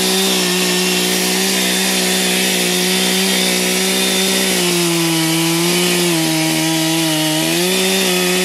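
Two-stroke chainsaw held at full throttle, cutting into a pine trunk. Its pitch sags a little about halfway through and picks back up near the end.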